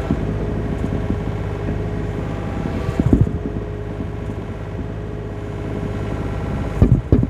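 John Deere 35D compact excavator's diesel engine running steadily under hydraulic load while the bucket digs into sand. Loud knocks come about three seconds in and again in a quick cluster near the end.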